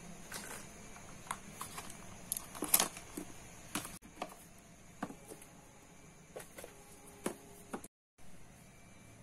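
Things being picked up and set down on a cluttered desk: scattered light knocks and clicks, the loudest nearly three seconds in, over faint room hiss.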